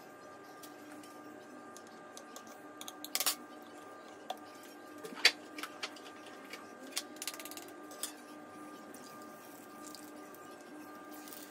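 Sparse sharp clicks and taps of kitchen utensils on a hard countertop, the loudest about five seconds in, as a metal spoon is set down, with a few quieter taps later. A faint steady hum runs underneath.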